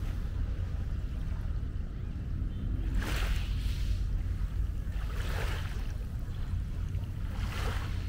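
Wind buffeting the microphone as a steady low rumble, with small waves washing up on the shore three times, each a short hiss.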